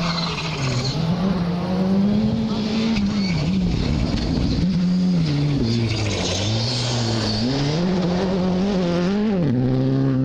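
A rally car's engine revving hard on a gravel special stage. The engine note climbs and falls off several times as the driver lifts and shifts, over the hiss of tyres on loose gravel.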